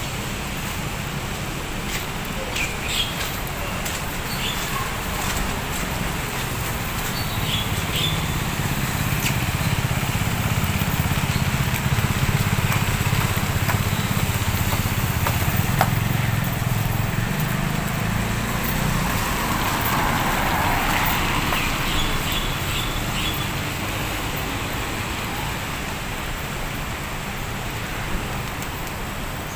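Roadside traffic noise: a steady rumble of passing cars that swells in the middle and fades again, with a few short high chirps above it.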